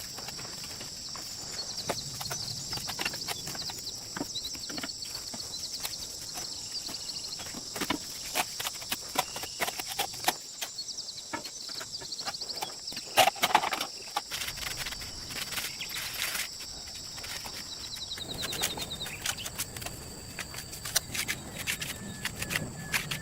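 Irregular sharp taps and knocks, the loudest about halfway through, over a steady high-pitched insect chirring.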